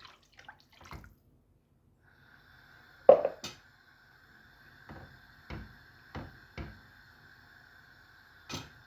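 Frying pan of tomato juice and water on the stove giving a steady hiss as it heats, while a utensil knocks against the pan about seven times, loudest about three seconds in.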